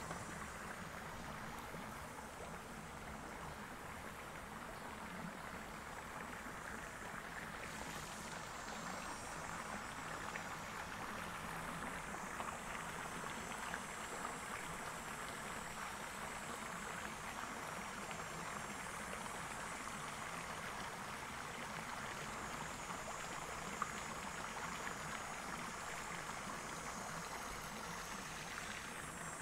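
Creek water rushing and splashing over a low concrete weir, a steady rush that grows a little louder after the first several seconds.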